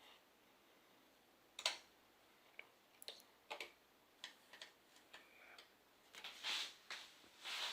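Scattered small clicks and taps with a few brief rustles: an M.2 SSD being handled and pushed into its slot on a desktop motherboard.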